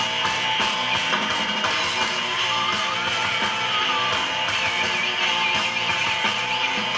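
Guitar music played from an amplifier through a bare Bowers & Wilkins DM100 bass/midrange driver held out of its cabinet; the driver is shot.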